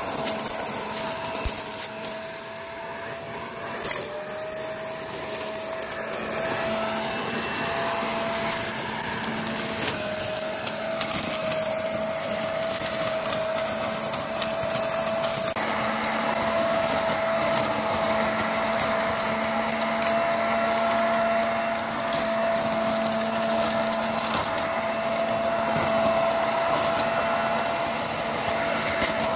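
Corded electric leaf blower-vacuum running in vacuum mode, sucking up dry leaves. Its motor gives a steady high whine, with leaves clicking and rattling through the intake tube.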